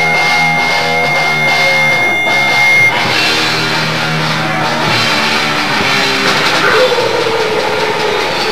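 Hardcore punk band playing live, with distorted electric guitar to the fore and a drum kit. A steady high tone rings over the guitar and stops suddenly about three seconds in, where the playing changes.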